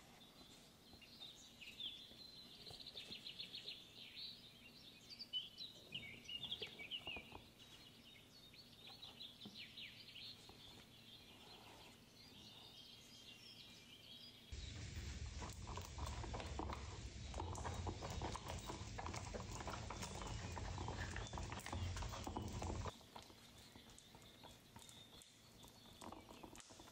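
Small clicks and taps of kitchen work for the first half. A louder steady noise with a low hum then starts suddenly about fourteen seconds in and cuts off abruptly some eight seconds later.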